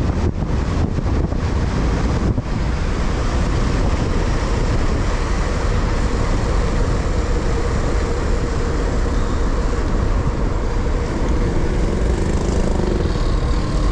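Wind rushing over a bike-mounted action camera's microphone while riding, with road and traffic noise beneath. A few sharp knocks in the first two or three seconds.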